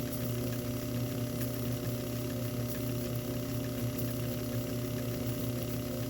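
Small hobby lathe running steadily with a constant motor hum, its chucked M4 tap hobbing the teeth of a 3D printer extruder drive gear, with faint regular ticking over the hum.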